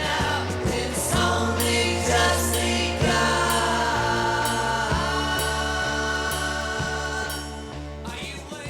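Background music with singing, a held bass line and a choir-like vocal melody, fading out near the end.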